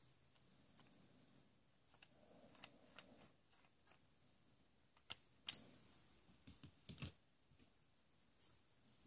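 Near silence broken by a handful of sharp clicks and taps about halfway through, the loudest a little after the middle.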